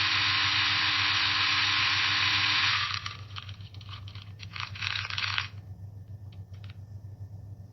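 Coffee beans being ground in a coffee grinder: a steady gritty grinding for about three seconds, thinning to scattered crackles that stop about five and a half seconds in, then a few faint ticks. A low steady hum runs underneath throughout.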